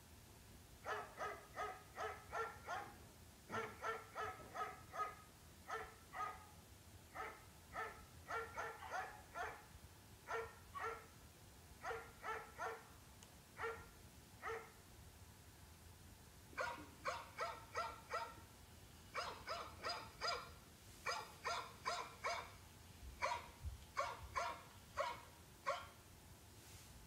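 A dog barking in quick runs of short, high yaps, several a second, with a brief pause a little past halfway.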